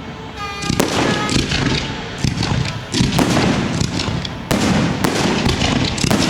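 Fireworks going off: a string of sharp bangs every second or so, with crackling in between.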